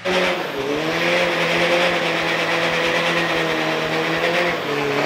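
Drag-racing pickup's engine snapping up to high revs and held there while the rear tyres spin in a smoky burnout, over a hiss from the spinning tyres. The revs sag briefly near the end, then climb again.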